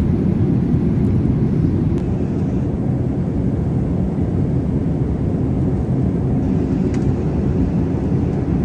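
Steady cabin noise of a jet airliner in cruise flight: an even, deep rush of engine and airflow noise.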